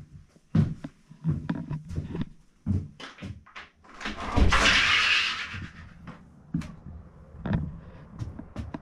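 Footsteps and knocks on a wooden cabin floor, then a cabin door opened with a loud rush of noise lasting about a second about halfway through, followed by more footsteps on a wooden porch.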